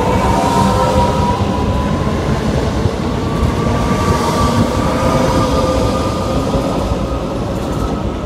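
Train running past on the main line: loud rumble of wheels on rail, with a whine that rises slowly and then holds steady, the sound easing a little near the end.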